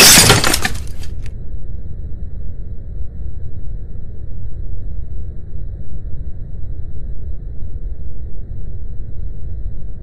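Terracotta vase shattering on a concrete floor, the shards clattering and scattering and dying away about a second in. After that, only a steady low rumble remains.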